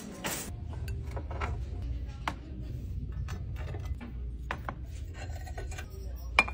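Shopping cart rumbling low while items are handled and set into its plastic basket: scattered clicks and clinks of ceramic mugs and decor, with two sharper knocks near the end.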